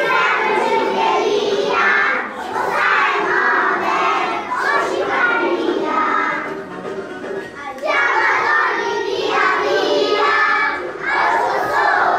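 A group of young children singing together loudly, half shouting, in short phrases of a second or two with brief breaks between them.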